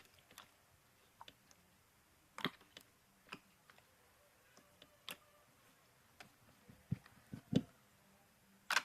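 Slime being squeezed and worked by hand, giving scattered short clicks and pops, loudest near the middle and end.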